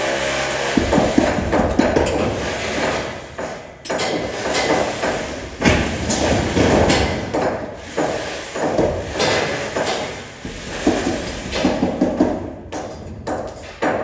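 Irregular knocks and clatter of work on a light galvanized-steel roof frame.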